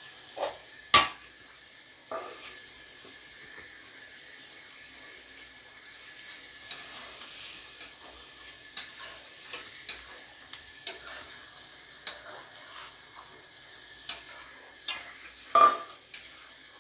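Spice masala frying in oil in a pot, sizzling steadily while a spatula stirs and scrapes it through the sautéing (kosha) stage. Sharp knocks sound about a second in and again near the end.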